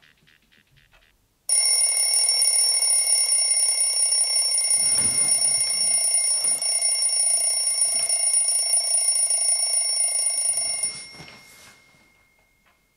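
Small alarm clock's alarm going off suddenly, a loud, steady, shrill ring that holds for about nine seconds, then stops and dies away.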